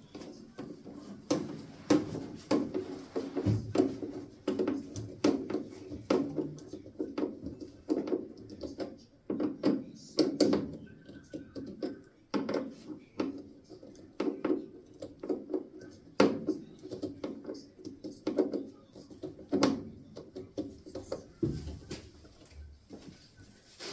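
Irregular clicks, knocks and rattles from hand work on a furnace: tools and parts being handled as the new inducer blower is fastened in and reconnected.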